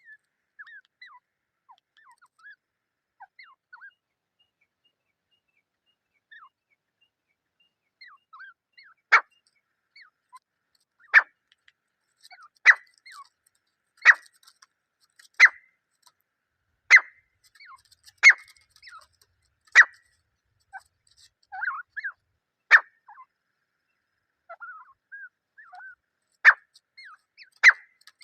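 Grey francolin (desi teetar) pair calling: soft, scattered chirping notes for the first several seconds, then loud, sharp calls repeated about every second and a half from about nine seconds in, pausing briefly before starting again near the end.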